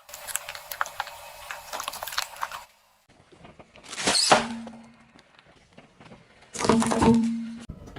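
Objects cracking and crunching as they are crushed, in three short stretches with abrupt cuts between them. First comes a run of dense crackling, then two louder crunches that swell and fade, the later one about a second long.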